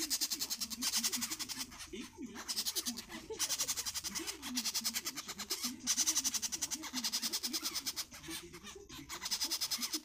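Featherless parrot chicks begging to be fed: rapid, raspy pulsing calls in bursts of a second or so, with short pauses between.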